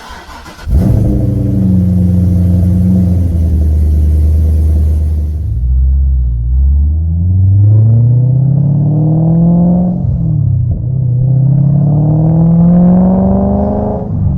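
Corvette C6 V8 through LG Motorsports long-tube headers and exhaust. It comes in abruptly under a second in and runs steadily at a low, even note. Then it pulls hard twice, the pitch climbing for a few seconds each time, with a sharp drop between the pulls like an upshift.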